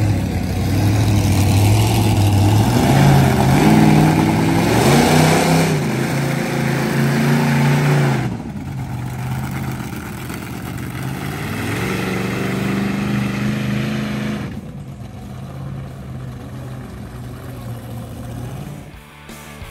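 Monster truck engine revving hard as it accelerates, its pitch climbing for several seconds before it lets off about eight seconds in. It revs up again and drops off once more, then runs fainter as the truck moves away.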